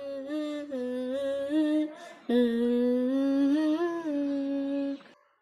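A voice humming a slow tune in long held notes, with a short break about two seconds in.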